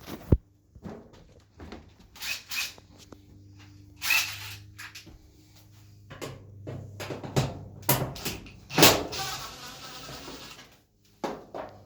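Irregular knocks, clicks and short scrapes of hands and tools working on a clothes dryer's sheet-metal top panel while its screws are taken out. The sharpest knocks come right at the start and a little before the 9-second mark.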